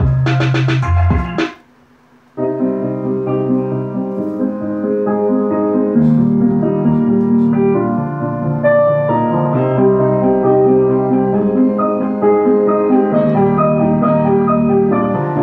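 Piano music played loud through a home-built 1000-watt power amplifier driving a 15-inch speaker. One piece cuts off about a second and a half in, and after a short pause another piano piece starts and plays on.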